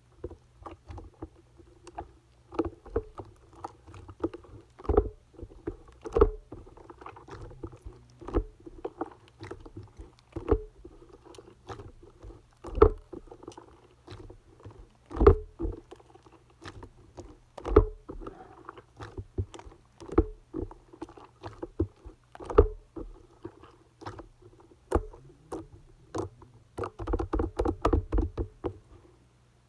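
Clay-mixed slime being squished and worked by hand, with sticky pops and clicks every second or two. The pops come fast and close together near the end.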